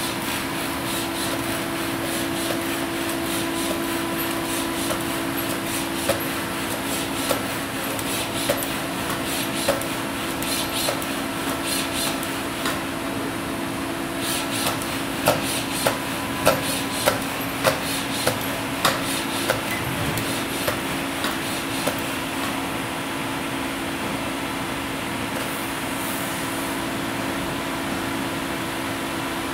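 Steady machine hum with two held low tones, under the light knocks of TORO, a torque-controlled humanoid robot, stepping on a hard floor about once a second, then a quicker run of sharper clicks as its arms and hand move in to grasp a part.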